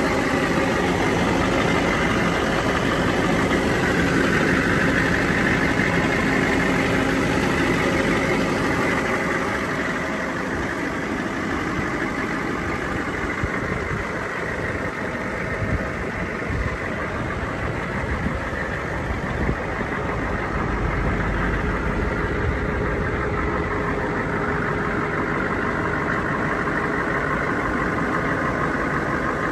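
M1167 Humvee's 6.5-litre turbodiesel V8 idling steadily, a little quieter from about ten seconds in.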